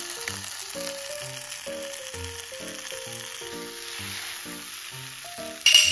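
Offal and vegetable stir-fry sizzling steadily on a hot fluorine-resin-coated griddle as chopsticks stir it, under background music with a melody of short notes. A short loud burst with a ringing tone comes near the end.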